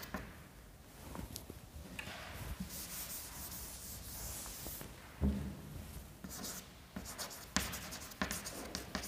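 Chalk on a blackboard: a few seconds of steady rubbing as the board is wiped, then quick scratchy strokes and taps of chalk writing letters. A short low sound stands out about five seconds in.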